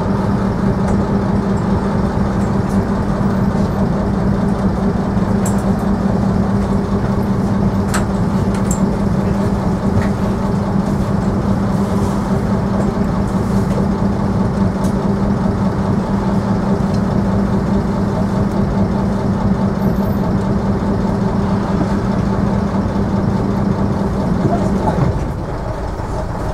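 Routemaster double-decker bus's diesel engine running at steady low revs, heard from the front of the upper deck. Near the end the steady drone drops away and the sound gets quieter.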